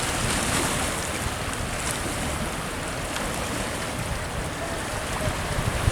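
Steady rushing outdoor noise with wind buffeting the microphone, rumbling unevenly at the low end.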